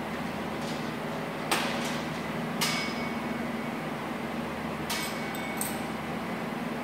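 Cable machine weight stack being changed for a drop set: four sharp metal clinks of the plates and the selector pin, the loudest about a second and a half in, over a steady hum of gym ventilation fans.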